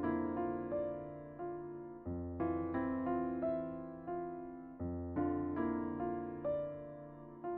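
Background music on a soft piano or electric piano: gently struck chords over slow bass notes that change every few seconds.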